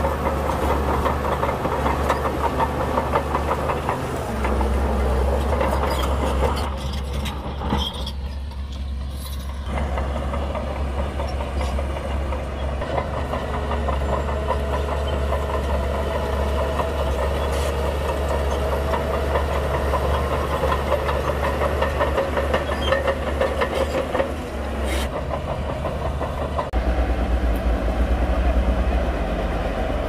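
Heavy crawler bulldozer's diesel engine running under load, with a continuous metallic clatter of its tracks. The engine note shifts about four seconds in and rises louder near the end.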